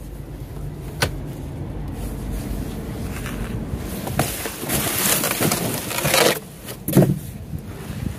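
Rummaging through cardboard boxes and plastic wrap in a dumpster: a click about a second in, a stretch of rustling and crinkling in the middle, and a knock near the end, over a steady low rumble.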